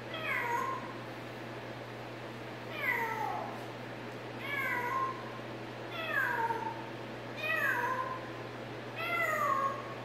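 African grey parrot imitating a cat's meow: six meows in a row, each falling in pitch.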